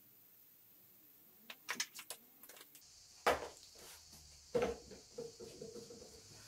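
A few light clicks, then two louder knocks about three and four and a half seconds in, with smaller knocks around them: makeup items being picked up and set down at a shelf.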